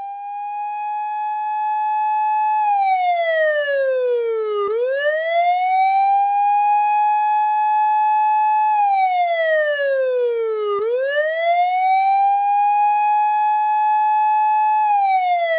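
Japanese police car siren wailing. Its tone holds high for a couple of seconds, then slides down slowly and swoops back up, repeating about every six seconds: three high holds, with the third falling again near the end.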